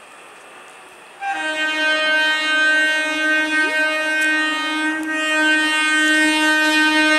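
Horn of an approaching Indian Railways EMU local train: one long, steady blast that starts abruptly about a second in.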